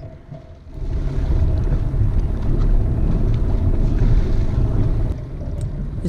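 Wind buffeting the microphone on a boat under way: a heavy, ragged low rumble that starts just under a second in and eases about five seconds in.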